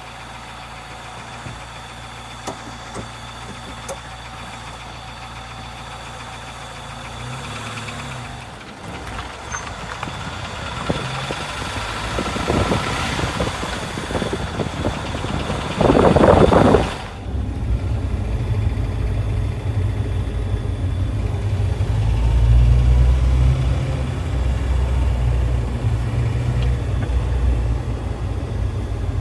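A 2004 Jeep Wrangler's 2.4 L four-cylinder engine running, getting louder after about eight seconds, with a loud short burst a little past the middle. Some sharp ticks stand out early on, in keeping with the ticking under acceleration that the owner is tracing.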